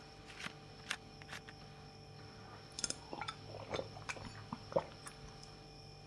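A run of small clicks, knocks and clinks, busiest in the middle of the stretch, as a glass bottle is handled at an open refrigerator, over a faint steady hum.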